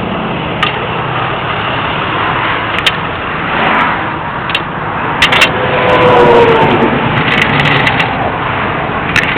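Steady roar of highway traffic going by, swelling about six seconds in as a vehicle passes close with a slightly falling tone, with a few light clicks and knocks over it.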